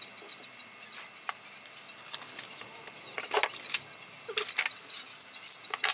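Light clicks and taps of a small 3D-printed plastic part with metal pins being handled and set down on a wooden workbench, with a couple of short squeaks in the second half.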